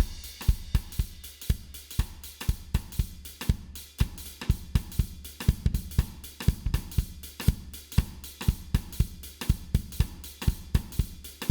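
A recorded drum kit groove of kick, snare, hi-hat and cymbals, played back through an Allen & Heath GL2400 analog mixing console with its low-mid EQ boosted at about 250 Hz.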